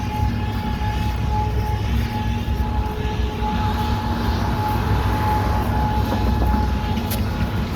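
Grangemouth industrial site's test siren sounding one steady, unwavering note over a heavy low rumble.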